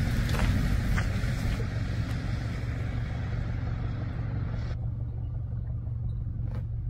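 Steady low rumble of wind on the microphone, with a light hiss over it that falls away about two-thirds of the way through and a couple of faint ticks.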